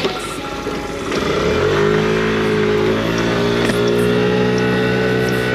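Motor scooter engine picking up speed about a second and a half in, then running at a steady pitch.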